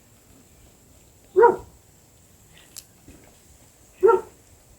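A dog barking twice, two short loud barks about two and a half seconds apart.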